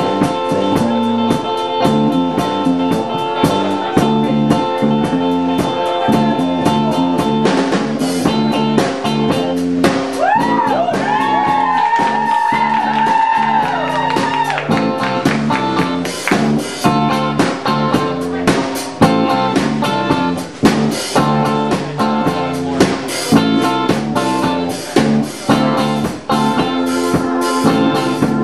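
Live rock band playing an instrumental passage: electric guitars over a drum kit with steady cymbal and drum strikes. From about ten seconds in, a lead line bends up and down and holds high notes for a few seconds.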